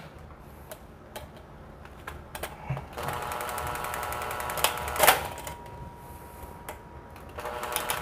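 Cordless drill-driver running in short bursts to drive a small terminal screw: a motor whir with rapid even clicking for about two seconds, starting about 3 s in, then a sharp click. It runs again briefly near the end.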